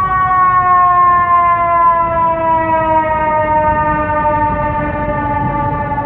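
FDNY fire engine's siren sounding one long wail that slides slowly and steadily down in pitch as the pumper drives past, over the low rumble of the truck and traffic.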